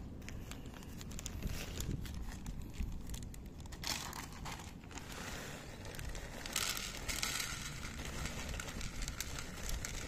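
A plastic bag of dry cat food crinkling while kibble is poured from it into a dish. There are louder bursts about four and seven seconds in, and small scattered clicks.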